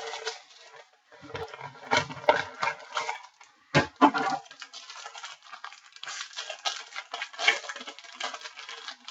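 Trading card packs and cards being handled: crinkling foil wrappers and sliding card stock with irregular small clicks, and a couple of louder handling noises about 2 and 4 seconds in.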